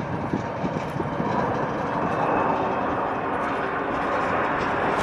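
Steady jet engine noise from airliners taxiing on the apron, with a faint high whine, growing a little louder about a second and a half in.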